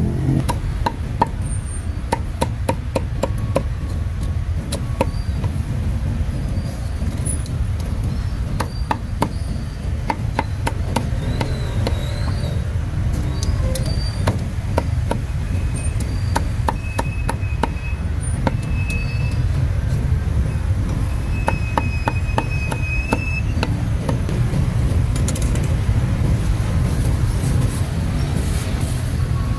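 Cleaver chopping roast meat: a long run of sharp knocks at an uneven pace, thinning out towards the end, over a steady low rumble of street traffic.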